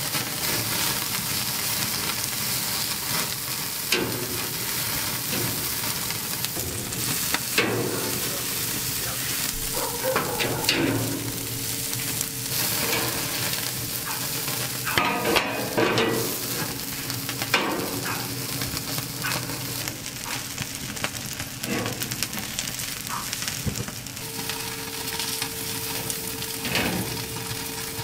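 Pork sizzling and crackling on a hardwood-charcoal barbecue grill, fat spitting over open flames, with scattered sharp clicks and knocks throughout.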